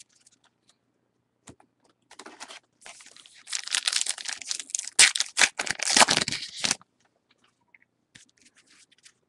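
A trading-card pack wrapper being torn open and crinkled: a dense crackling with many small snaps, starting about two seconds in, loudest in the middle and stopping abruptly near seven seconds, followed by a few faint ticks of cards being handled.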